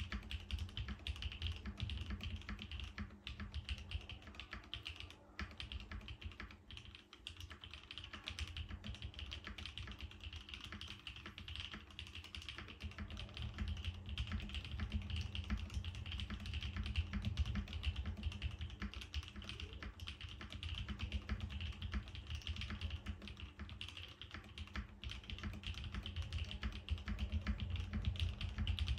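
Continuous typing on a plateless, gasket-mounted 7V custom mechanical keyboard with lubed Gateron Cream Soda switches and GMK keycaps: a steady, dense clatter of keystrokes, briefly softer about six seconds in.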